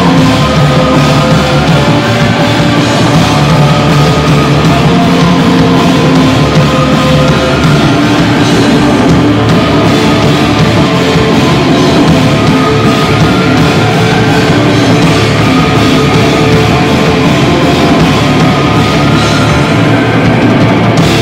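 Live rock band playing loud and without a break: five-string electric bass and drum kit with cymbals.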